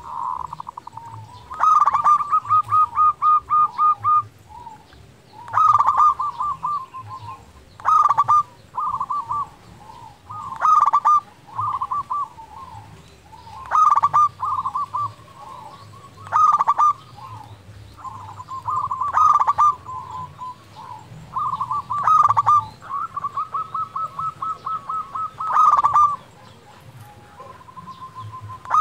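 A local zebra dove (perkutut) cooing over and over, about a dozen phrases, one every two to three seconds. Each phrase opens with a sharp, loud note and runs on in a quick string of short coos.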